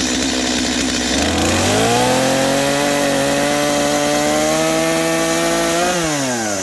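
Stihl chainsaw revving up about a second in and running at high speed through a log on a sawhorse, then dropping back toward idle near the end.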